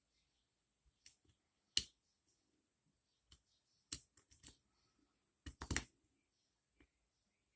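Small metallic clicks and taps of a lock pick and tension wrench working in a five-pin dimple bike lock, coming irregularly: one about two seconds in, a few more around four seconds, and a tight cluster of the loudest clicks near the end.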